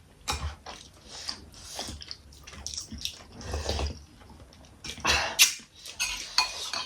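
Dishes and utensils clinking and scraping in short, irregular knocks during a meal, with a louder cluster about five seconds in.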